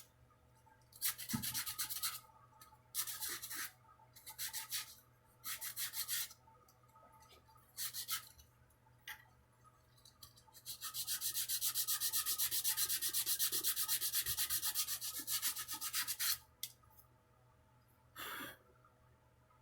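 Sandpaper rubbing on the wooden neck of a Ural guitar, in a string of short bursts of quick back-and-forth strokes with pauses between. About eleven seconds in comes one steady run of fast strokes lasting about five seconds, then one last short burst near the end.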